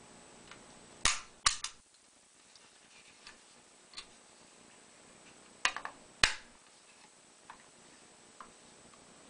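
Kodak Instamatic 104 camera handled by hand: sharp plastic-and-metal clicks and snaps as its back is opened and closed again. There are three clicks about a second in and two louder ones a little past the middle, with faint ticks between.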